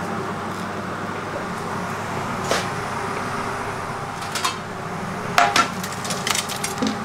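Metal wire fryer basket knocking and clattering against a steel plate several times as fried onion bhajias are tipped out, most of the knocks in the last three seconds. A steady background hum runs underneath.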